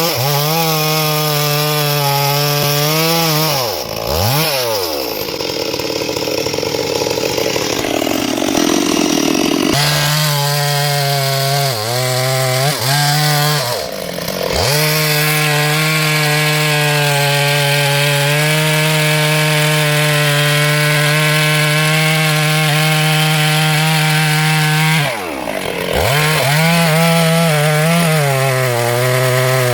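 Small chainsaw running at high speed while cutting a tree. Its pitch drops sharply and comes back up four times, and about five to ten seconds in the steady note turns rough and noisy as the chain works through the wood.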